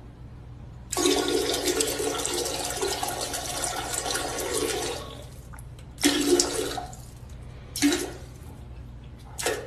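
A toilet flushing: water rushes loudly for about four seconds, then comes in three short bursts over the next few seconds.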